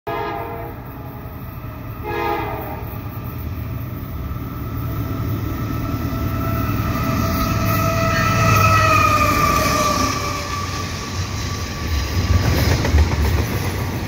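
Horn of a CP ES44AC diesel locomotive leading a fast double-stack intermodal train. There is a short blast at the start and another about two seconds in, then a long blast that falls in pitch as the locomotive passes close by, over the engine's rumble. Near the end the wheels of the stack cars clatter past.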